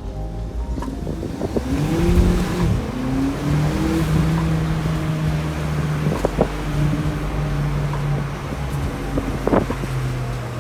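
VW Polo GTI's 2.0 TSI turbo four-cylinder running through its stock exhaust. The engine note climbs about two seconds in, then holds fairly steady, with two brief sharp cracks later on.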